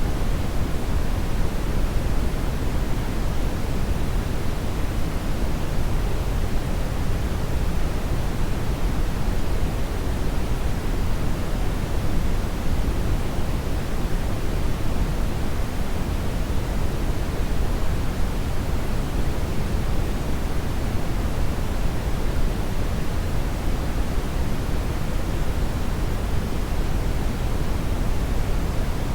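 Hair dryer blowing steadily: a constant, even rushing of air, heavier in the low end, with no audible motor whine and no change.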